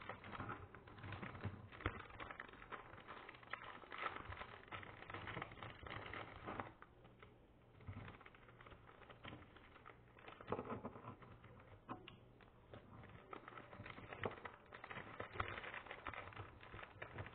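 Irregular clicks, taps and rustles of hands handling small objects close to the microphone.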